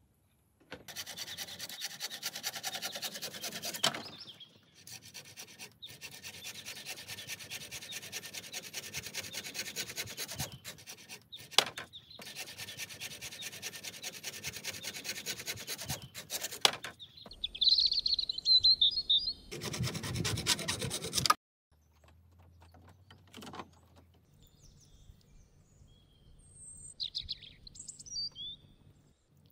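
Rubbing and scraping of bamboo poles being handled on a roof frame, in several stretches that start and stop abruptly, with a louder burst about two-thirds of the way in. Birds chirp briefly in the middle and again near the end.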